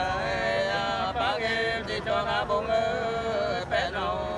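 Unaccompanied hát sli singing, the Nùng folk love-duet style: long held vocal notes that bend and slide, broken by short breaths.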